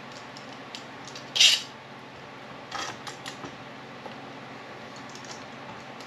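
Small clicks and taps of a hand tool being handled against a wooden board, with one short, loud rasp about a second and a half in and a weaker one near three seconds.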